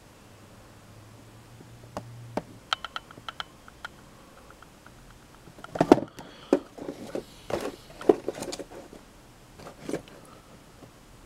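Plastic blister packs of carded Hot Wheels cars being handled: scattered light clicks and taps, then a cluster of louder knocks and crinkles from about six seconds in as the cards are moved about.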